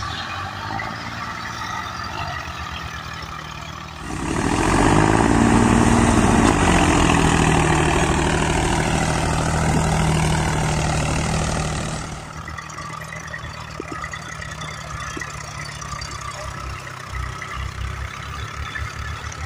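Diesel engines of three farm tractors, a Farmtrac 45 and two Eichers, running as they drag rear soil-levelling scrapers through soft soil. From about four seconds in to about twelve seconds the engines are much louder with a rushing noise over them, then drop back to a steadier, lower run.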